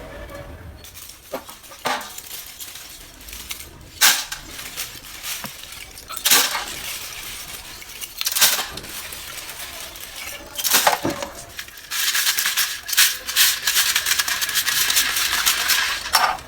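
Chunks of roasted multani mitti (fuller's earth clay) being bitten and crunched: sharp crunches about every two seconds, then a dense run of crackling chewing in the last few seconds.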